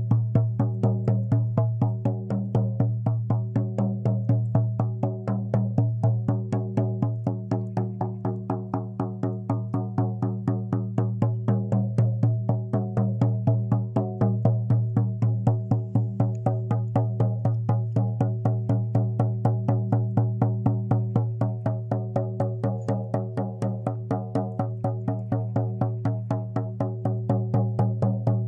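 Shaman's frame drum (buben) beaten in a rapid, even rhythm, each stroke ringing with a low booming tone, as accompaniment to a guided healing meditation.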